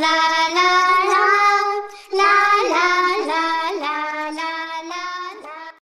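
A child's voice singing a melody in a children's song, with a short break about two seconds in, then growing fainter and stopping just before the end.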